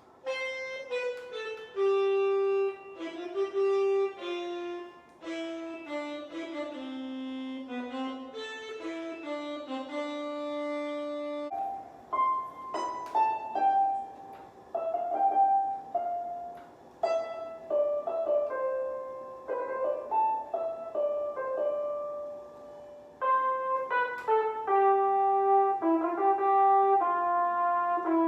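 An EWI (electronic wind instrument) playing the same short melodic phrase in changing synth voices: first an alto saxophone voice, then from about twelve seconds in a piano voice with struck, decaying notes, then near the end a brassy lead voice.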